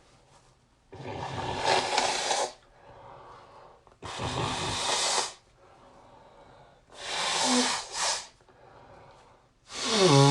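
A person blowing a congested nose hard: three long, loud blows with quieter breaths between them, and a fourth starting near the end with a wavering honk.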